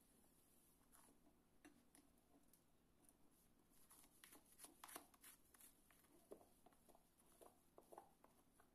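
Near silence: faint room tone with scattered small clicks and soft taps, most of them between about four and eight seconds in.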